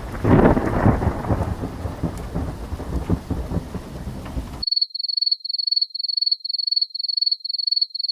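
Thunder rumbling over steady rain, the loudest crack of it about half a second in. About four and a half seconds in it cuts off abruptly and a high-pitched electronic beep takes over, pulsing about three times a second.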